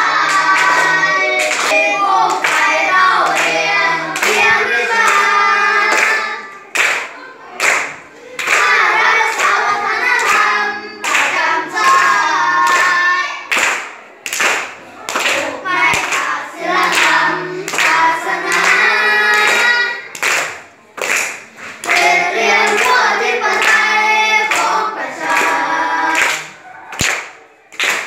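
A class of children singing a song together in Thai and clapping along on a steady beat.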